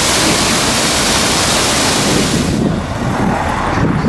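Small waterfall on a stream rushing over rock ledges, a loud steady hiss. About two and a half seconds in it cuts off abruptly, giving way to a lower, uneven rumble.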